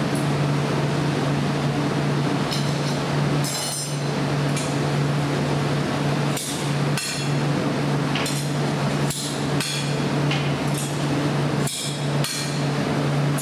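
Glassblowing bench work: sharp metallic clinks and knocks of steel jacks and the blowpipe, with a ringing after each, coming irregularly about once a second. Underneath is the steady low hum of the hot shop's furnace and blowers.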